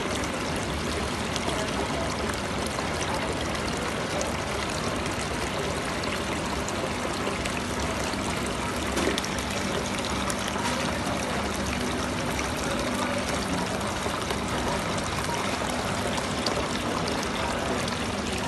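Water pouring steadily in a thin sheet from the spout of a decorative artificial-rock fountain and splashing into its pool.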